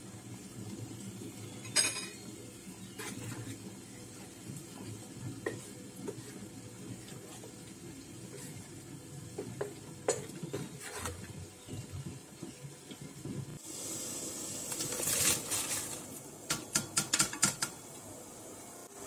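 Wooden spatula stirring chicken curry in a pan, with scattered knocks and scrapes against the pan. Near the end, chopped cabbage is tipped from a plastic strainer into a pot, rustling and then clattering in a quick run of clicks.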